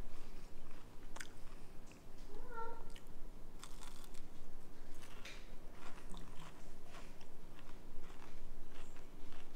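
A person chewing and biting into crispy, batter-fried catfish strips, with scattered sharp crunches. A short, high, wavering tone sounds once about two and a half seconds in.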